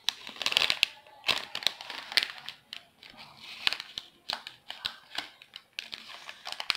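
Plastic sachet crinkling and rustling as it is handled, in irregular crackles and short bursts.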